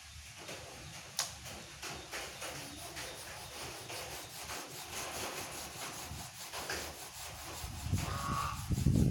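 Domestic geese shuffling and rustling, with scattered small clicks and scuffs, and one short honk about eight seconds in. A low rumble swells near the end.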